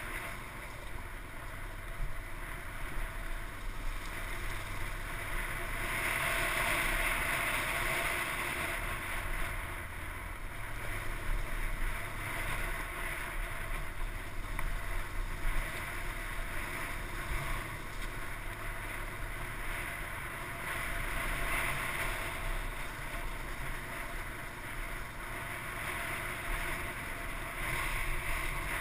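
Dirt bike engine running while riding over rough ground, with wind noise.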